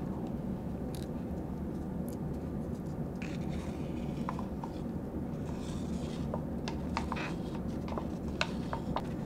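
Wooden stir stick scraping and tapping against a small plastic mixing cup as two-part epoxy is scraped out of it, with a few light clicks in the second half, over a steady low hum.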